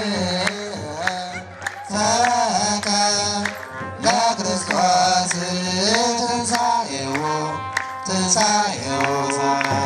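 Ethiopian Orthodox liturgical chant (zema): a group of male clergy singing together in long, sliding notes over steady kebero drum beats.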